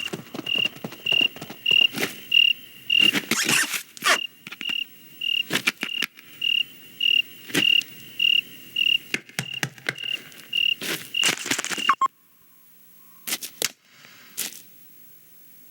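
A cricket chirping steadily, about two chirps a second, mixed with sharp clicks and knocks. The chirping cuts off suddenly near the end, leaving only a few faint clicks.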